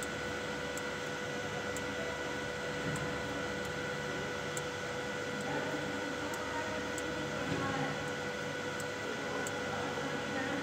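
Steady electrical hum and hiss from the energised crane control panel, with a few steady whining tones and faint high ticks about once a second.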